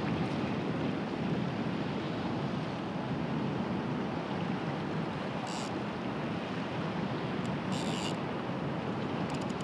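Sea water rushing and washing against a stone breakwater, with wind on the microphone, as a steady noise. A few brief high-pitched rasps cut in about halfway through and again near the end.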